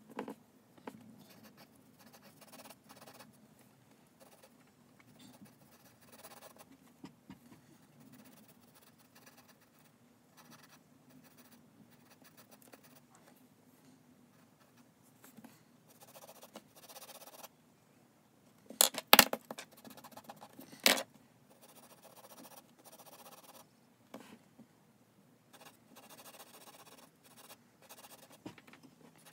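Graphite pencil sketching on paper: soft, irregular scratching of short pencil strokes, with a few louder sharp scrapes about two-thirds of the way through.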